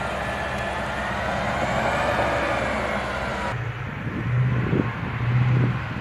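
Armored bridge-launcher vehicle running close by, with a high whine that wavers up and down. After a cut about three and a half seconds in, wind buffets the microphone over a pulsing low engine hum from farther off.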